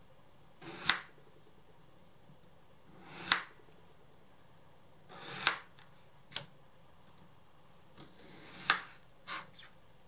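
Chef's knife slicing through a raw daikon radish on a cutting board: about five slow cuts a couple of seconds apart, each a brief crunch through the radish ending in a sharp knock as the blade meets the board.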